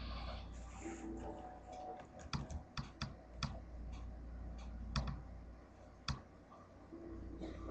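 Computer keys being pressed: a quick run of about five sharp clicks a couple of seconds in, then two single clicks later, over a steady low hum.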